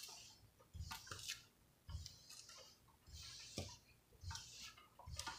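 Faint, irregular rubbing and crinkling as hands smooth down a large diamond painting canvas under its plastic cover film, with a few light ticks.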